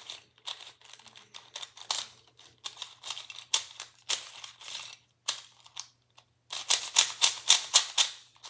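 Plastic Rubik's cubes clicking and clattering as they are handled, with irregular clicks and a quick run of clicks near the end.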